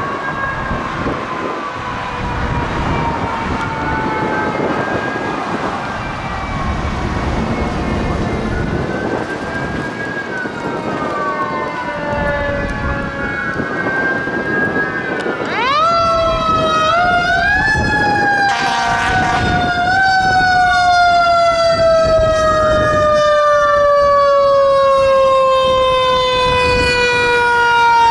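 Fire engine sirens wailing over road and engine noise, several tones rising and falling. About halfway through, a closer siren starts up with a sharp rise, then slowly drops in pitch and grows louder as the engine approaches. There is a short hissing burst partway through.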